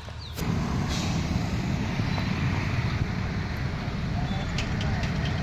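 A steady low rumbling noise with an even hiss over it, starting suddenly about half a second in.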